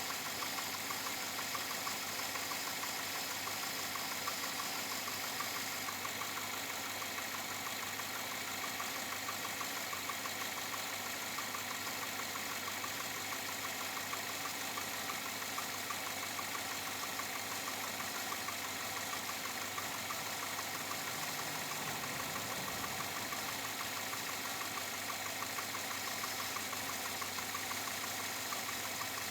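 2007 Chevrolet Avalanche V8 idling steadily with a fast, even knocking tick. The owner cannot tell whether it is engine knock or piston slap, and four dealer visits have not cured it.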